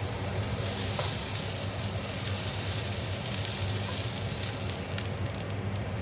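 Food sizzling and frying in a hot pan: a steady crackling hiss, with a low steady hum underneath.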